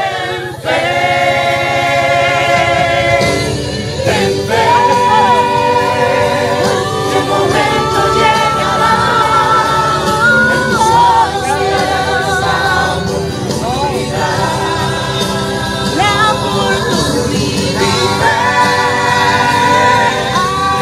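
Several voices singing a slow pop ballad together over backing music, with long held notes that waver in pitch.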